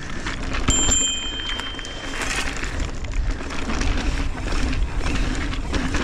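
Mountain bike rolling fast over a packed-dirt pump track: tyre noise and wind rushing over the camera's microphone, with knocks and rattles from the bike over the rollers. A brief high squeal comes about a second in.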